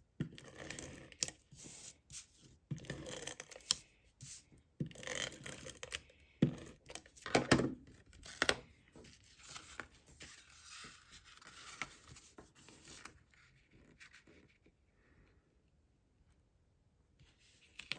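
Cardstock being handled and stuck down onto a card: irregular rustling and scraping with a few sharp taps, loudest about halfway through. It dies away to near quiet for the last few seconds.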